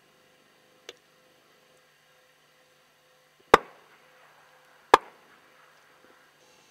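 Two shotgun shots about a second and a half apart, fired at geese flying past, with a short echoing tail after each. A faint click comes about a second in.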